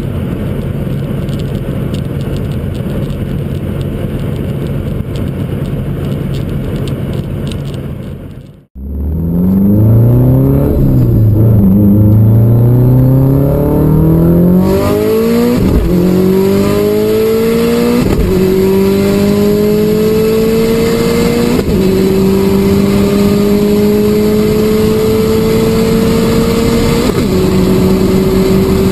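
Car engine droning steadily at cruise for the first several seconds, heard from inside the car. After a sudden break, a turbocharged four-cylinder sports car accelerates hard: the engine note climbs and drops sharply at each of four upshifts.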